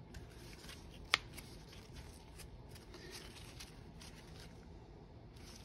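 Faint handling noise of gloved hands turning and fitting a Bafang M600 final drive gear, with light rustling and small ticks and one sharp click about a second in.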